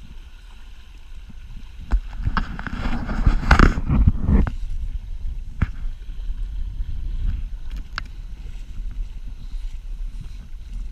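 Wind buffeting the microphone with a low rumble aboard a Sonata 7 yacht sailing slowly in light wind. About two seconds in comes a burst of rustling and knocking lasting a couple of seconds, then a few single sharp clicks.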